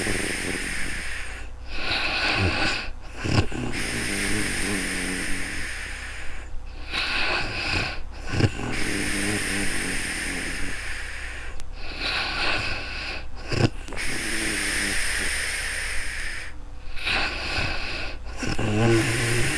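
A woman snoring in deep sleep: slow breaths about every five seconds, rattling snores alternating with long airy breaths, several snores ending in a short sharp snort.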